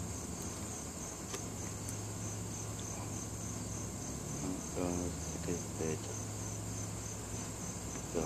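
Insects chirping in a steady, fast, even high-pitched pulse, over a low steady hum.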